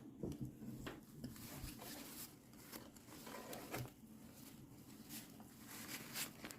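Packaging being handled during an unboxing: irregular rustling and crinkling with short scratchy strokes, over a faint steady low hum.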